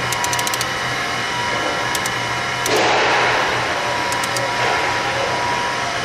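Tesla-type disc sand pump, 18.5 kW, running steadily on its electric motor: a constant machine hum with a few steady whining tones. A quick run of clicks comes near the start, and a louder rushing burst comes about three seconds in, with a smaller one near five seconds.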